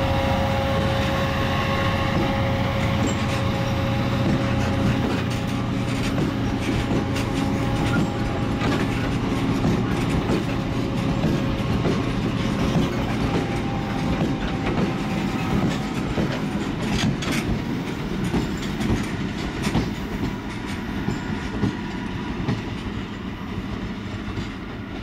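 A freight train of PCA tank wagons rolling past at close range, with the wheels clicking over the rail joints. The sound eases off near the end as the last wagons go by.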